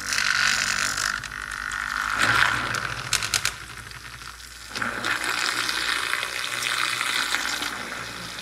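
Handheld battery milk frother on its low setting, its small motor whirring while the wire whisk churns and splashes coffee in a cup. The sound dips for a moment in the middle, with a few light clicks just before, then picks up again.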